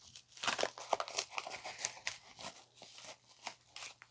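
Packaging crinkling and tearing as a mail package of cards is opened by hand: an irregular run of crackles, busiest for the first two and a half seconds and sparser after.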